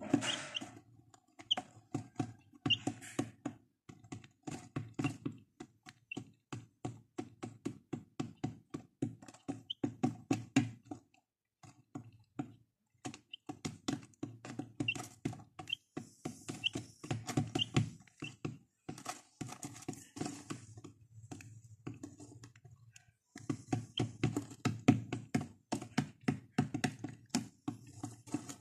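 Baby chicks pecking crumbled feed off the hard plastic floor of their box: rapid clusters of taps, with a few short high peeps among them. The tapping twice pauses briefly.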